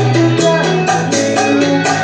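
A man singing into a handheld microphone over Latin dance backing music with a steady bass line.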